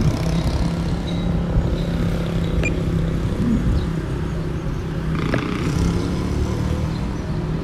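A steady low engine hum with outdoor road noise, and a few faint clicks.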